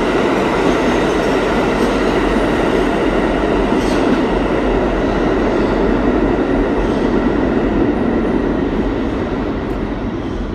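Alstom R160A/R160B subway train moving along the platform: a loud, steady rumble of wheels on rails, easing off slightly near the end.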